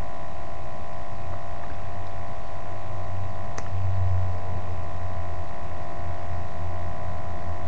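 Steady electrical hum and hiss, with a single faint click about three and a half seconds in.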